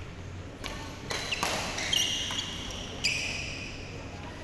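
Badminton play on an indoor court: sharp racket strikes and footfalls, with sneakers squeaking on the court floor. The loudest squeaks come about two seconds in and again near the three-second mark.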